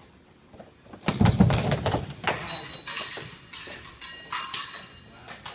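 A quick fencing exchange: a sudden burst of blade clashes and stamping footwork about a second in, followed by a few seconds of lighter metallic clicks and ringing.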